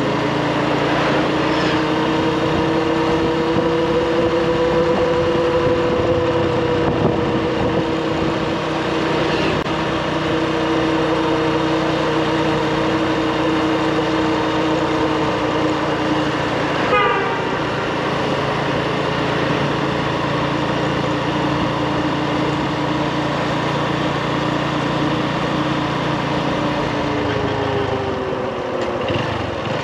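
Motorbike engine running at a steady cruising speed, a constant drone over wind and road noise, its pitch slowly wandering and dipping near the end as the bike slows.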